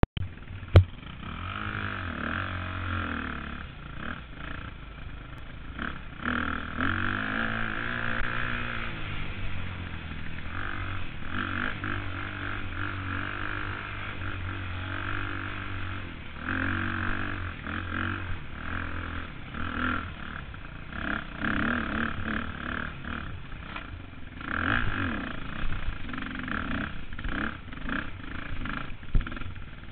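KTM 250 dirt bike engine revving up and down with the throttle as it is ridden over rough singletrack, with a sharp knock near the start.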